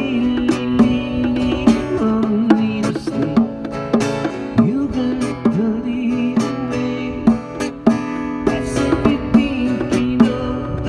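Music led by guitar: an instrumental passage of the song, with plucked guitar notes and sliding notes between the sung lines.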